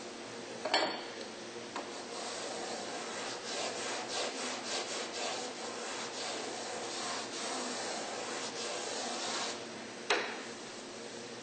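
Wood being worked by hand along a grand piano's inner rim, a run of rasping, rubbing strokes as the soundboard bevel is shaped. There is a sharp knock about a second in and another near the end.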